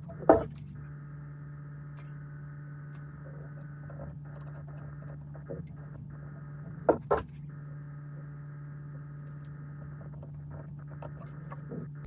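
Steady electrical hum, as from a small mains-powered device, with a few sharp knocks: one loud knock about a third of a second in, a quick double knock around seven seconds, and another near the end, where the hum cuts off.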